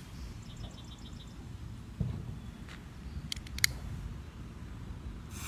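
Wind rumbling on the microphone while a small firework is being lit on a driveway. There is a thump about two seconds in and a few sharp clicks about three and a half seconds in, and a hiss begins just at the end as the fuse catches.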